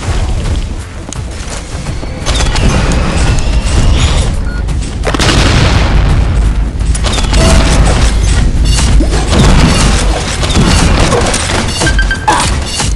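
Consumer fireworks going off in a rapid, continuous barrage of booms and crackles, getting louder about two seconds in.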